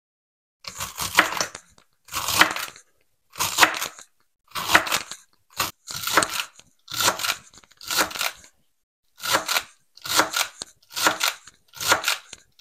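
About a dozen crunching, scraping strokes, one roughly every second and each lasting most of a second: raw vegetables being worked by hand in food preparation.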